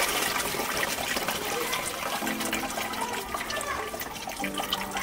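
Acid solution poured off from a metal bowl through a cloth strainer into a bucket: a steady splashing trickle of liquid.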